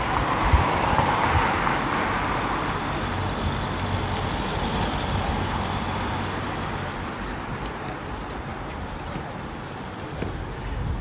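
Road traffic noise, a vehicle going by, loudest at the start and fading away over several seconds, with wind rumbling on the microphone at times.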